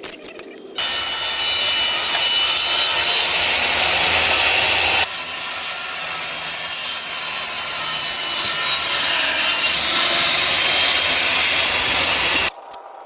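Power tool working wood: a loud, steady cutting or sanding noise in several edited stretches that start and stop abruptly.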